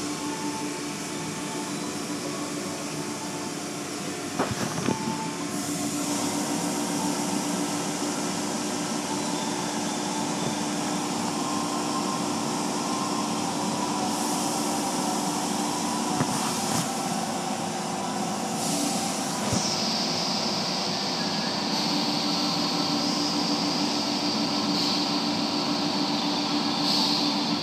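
Automatic car wash machinery running in the wash bay, heard through the glass of a viewing window: a steady motor or pump hum under the hiss of water spraying. A brighter, louder hiss comes in about two-thirds of the way through.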